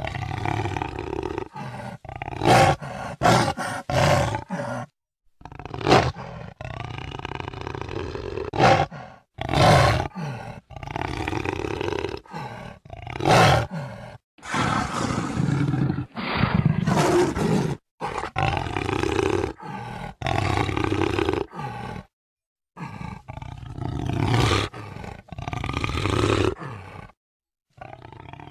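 Jaguar roaring and growling in a string of calls a second or two long. Some calls break off abruptly into dead silence, as if separate recordings were cut together.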